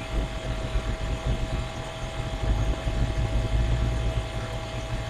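Steady low background hum with a thin, faint steady tone above it.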